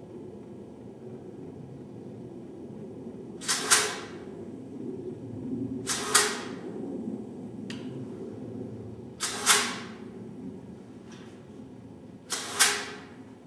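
Compressed air let out of an air-hose hand tool in four short hissing blasts, about three seconds apart, with a faint brief one in between, over a steady low workshop hum.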